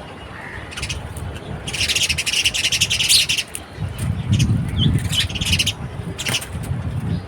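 Small birds chirping: a dense burst of rapid high chattering about two seconds in, then scattered short chirps. A low rumble runs underneath.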